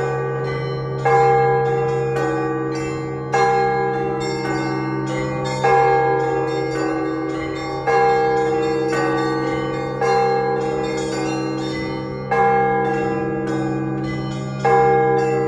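Russian Orthodox church bells rung in a peal. A deep bell is struck about every two seconds, each stroke ringing on and fading, over a quick, steady pattern of smaller bells.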